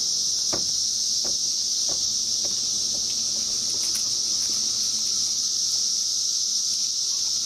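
Massed chorus of 17-year periodical cicadas (Brood XIV) during their emergence: one steady, unbroken high-pitched drone.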